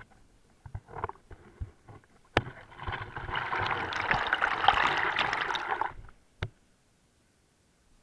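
Waterfall white water splashing and rushing right against the camera, a dense crackling rush lasting about three seconds. Before it come scattered knocks and taps, and a sharp knock, from the camera being handled and bumped; another single knock follows the rush.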